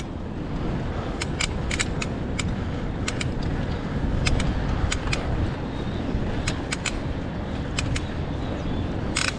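Bicycle riding noise: a steady low rumble of wind and tyres, with irregular sharp clicks and light rattles scattered through it. A slightly longer rattle comes near the end.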